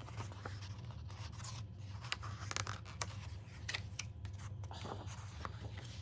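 Pages of a picture book being handled and turned: a scattered run of brief paper rustles and small clicks over a steady low hum.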